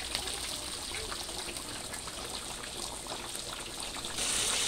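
Fish frying in a pot of oil, sizzling and crackling, beside a wok of coconut milk simmering. The hiss gets louder about four seconds in.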